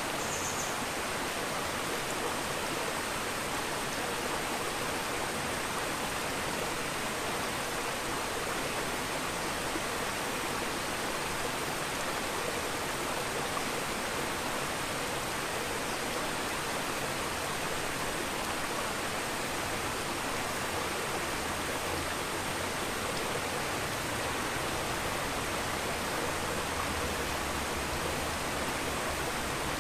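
Steady rushing hiss of aquarium water, with fine air bubbles streaming up from an air diffuser.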